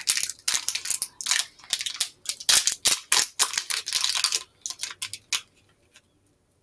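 Plastic snack-bar wrapper crinkling as it is peeled open: a dense run of sharp crackles that thins out and stops about five seconds in.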